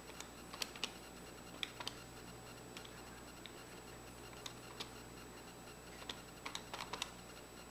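Desktop calculator keys being pressed, a series of sharp, irregular clicks in small clusters, with the quickest run of presses near the end.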